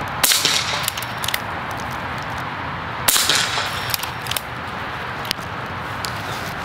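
Two air rifle shots about three seconds apart, each a sharp crack, with several fainter clicks after each, over a steady outdoor hiss.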